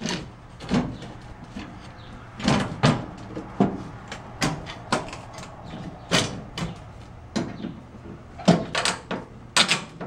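Diamond-plate metal floor panel being set down and shifted into line, giving a string of irregular metal knocks and clanks, the loudest near the end.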